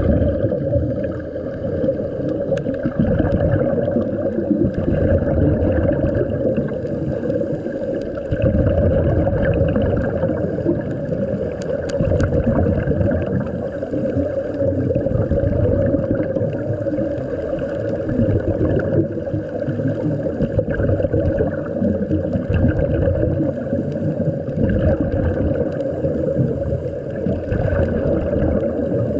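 Muffled underwater rumble recorded below the surface, with the gurgling of scuba divers' exhaled regulator bubbles swelling and fading every few seconds.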